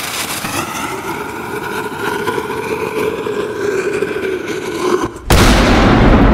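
Sound-effect intro on a reggae record: a steady, engine-like rushing noise with a faint held tone, broken off about five seconds in by a sudden loud blast of noise whose hiss fades away.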